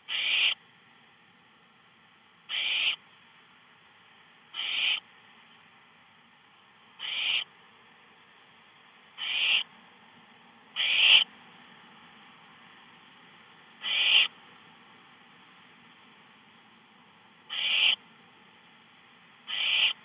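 Barn owl nestlings giving their rasping, hissing begging call, the "snore": nine calls, each about half a second long and swelling toward its end, one every two seconds or so.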